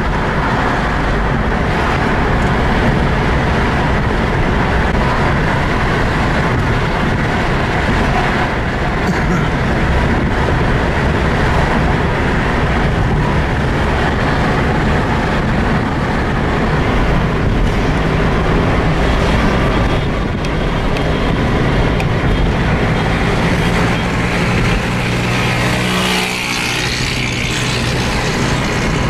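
Engine and road noise inside a moving car, steady throughout. Near the end the engine note comes through more clearly, then briefly drops away.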